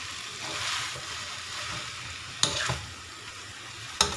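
Rice vermicelli noodles sizzling in an oiled wok while being stirred and turned with a metal spatula, with a steady frying hiss; the spatula knocks sharply against the pan twice, about two and a half and four seconds in. The noodles are being stir-fried until they cook through.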